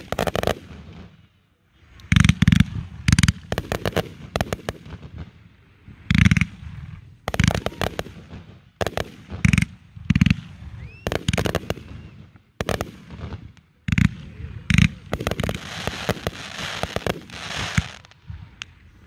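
Fireworks display: aerial shells bursting one after another, sharp bangs in quick clusters. Near the end comes a long stretch of dense crackling.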